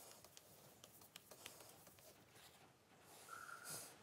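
Near silence: faint rubbing and light ticks of a paper towel wiping the painted fuel tank of a Royal Enfield motorcycle, with a short faint high tone near the end.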